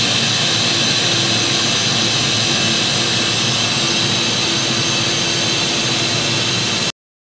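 Steady machine-shop noise from a running CNC machining center: an even, loud hiss with a steady low hum beneath it, cutting off suddenly near the end.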